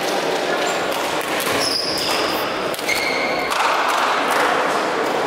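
Badminton rally in a large sports hall: sharp racket hits on the shuttlecock and a few short high squeaks, over the hall's steady background noise.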